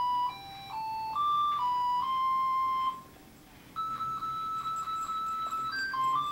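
Walking Santa Claus toy playing an electronic chip tune, a simple melody of single beeping notes stepping up and down. The tune breaks off for a moment about three seconds in, then starts again with quick repeated notes.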